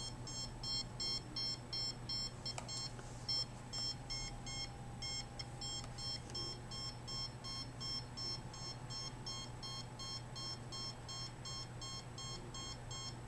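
Handheld RF (microwave) meter's alarm beeping rapidly and steadily, short high beeps about three a second: the meter is reading above its alarm threshold.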